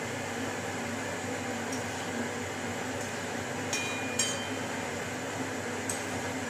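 A spoon knocks twice against a metal kadai while a curry is stirred, about four seconds in, the pan giving a brief ring. A steady background hum and hiss runs under it.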